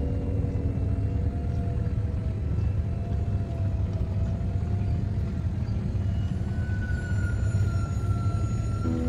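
Steady low rumble with soft background music faintly over it.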